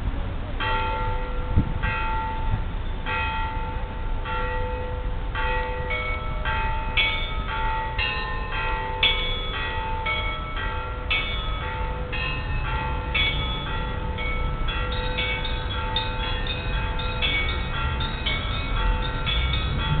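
Russian Orthodox church bells ringing in a peal from the Vladimir Church belfry: one bell struck steadily about once a second, with smaller, higher bells joining in faster patterns that grow denser towards the end.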